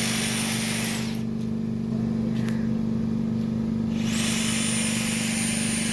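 A steady low machine hum runs throughout, with a loud hiss over it that stops about a second in and starts again about four seconds in.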